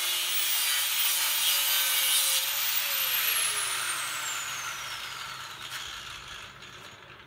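DeWalt angle grinder cutting through steel tubing for about two and a half seconds, then switched off, its whine falling steadily as the disc spins down.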